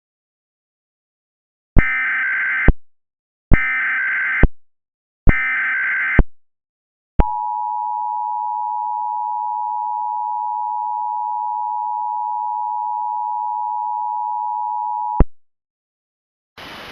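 Emergency Alert System tones marking the start of a Required Monthly Test. Three short bursts of screeching SAME header data, each about a second long, come first. Then the two-tone attention signal holds steady for about eight seconds and cuts off suddenly.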